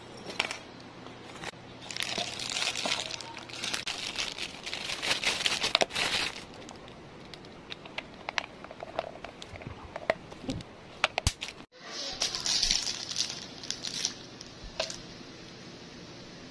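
Plastic packaging crinkling and rustling as a poly mailer and plastic-wrapped items are handled and opened, in several bursts with scattered small clicks and taps between them.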